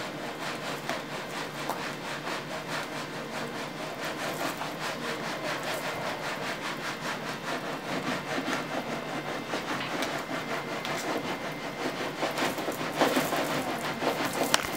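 Metal baking pan shaken back and forth on a wooden table, making a rhythmic rubbing scrape. It gets louder over the last few seconds as the shaking speeds up.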